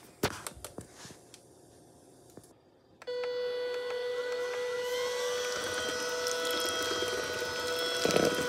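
A few handling clicks and knocks, then a Chefman cordless electric hand mixer switches on about three seconds in, running at speed 2 with a steady high whine as its beaters whip egg and butter. A louder rattle comes near the end.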